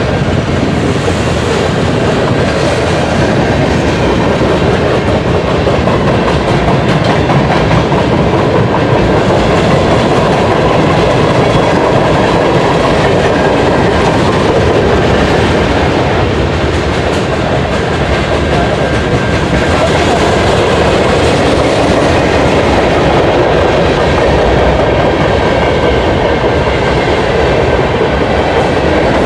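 CN manifest freight train rolling past at track side, a steady, loud run of steel wheels on rail under the passing freight cars.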